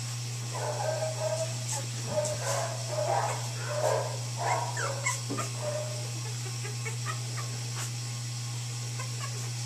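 Young puppies whimpering and squeaking: a run of short, high whines in the first half, then fainter scattered squeaks, over a steady low hum.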